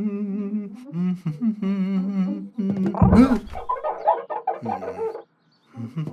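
Cartoon character vocals: a voice humming a warbling, wavering tune, broken about three seconds in by a sudden loud noisy burst, then choppy clucking vocal noises.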